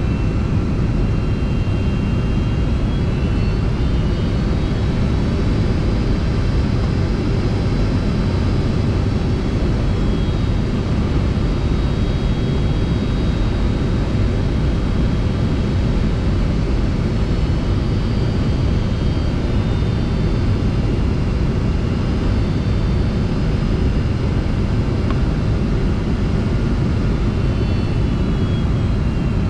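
Steady cabin noise of a jet airliner on approach: a low rumble of engines and rushing air, with faint high whining tones that drift slightly in pitch.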